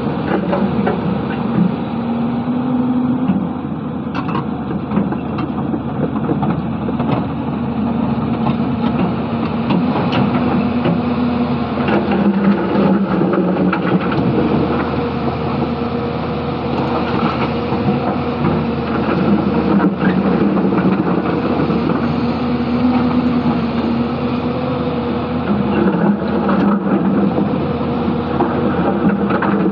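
Hyundai 220-9S crawler excavator's diesel engine running under hydraulic load, its pitch dipping and rising as the boom and bucket work. Now and then a short knock as rocks in the riverbed are scraped and struck by the bucket.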